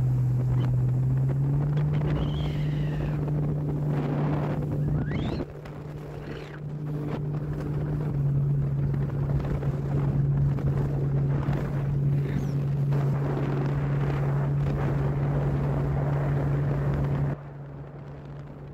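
Jet ski engine running at a steady cruising pitch, with wind on the microphone. The engine note steps up slightly about a second and a half in, and the sound drops abruptly in level about five seconds in and again near the end.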